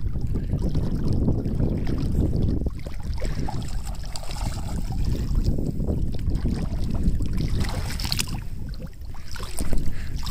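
Wind buffeting the microphone, a steady fluctuating rumble, with a couple of brief splashes in shallow water near the end.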